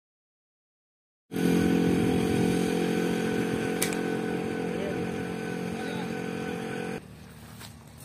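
A small vehicle engine running steadily. It starts abruptly about a second in, fades slightly, and cuts off suddenly near the end, where a few faint footsteps follow.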